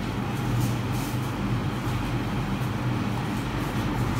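A steady low mechanical hum with an even hiss of background noise, unchanging throughout.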